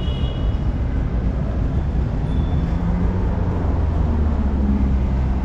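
Loud, steady low rumble of street traffic, with a low engine hum rising slightly a few seconds in.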